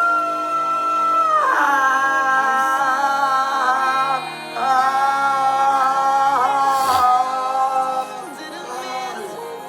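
Music with a singing voice holding long, sustained notes that step and slide between pitches, broken by a brief gap about four seconds in and getting softer near the end.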